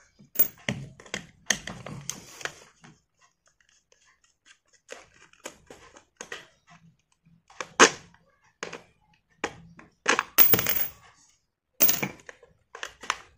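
Handling noise from taking apart an air-horn compressor motor with screwdrivers: scattered clicks, scrapes and clinks of the metal tools against the motor housing and on a tiled floor, with a few sharper knocks about eight, ten and a half and twelve seconds in.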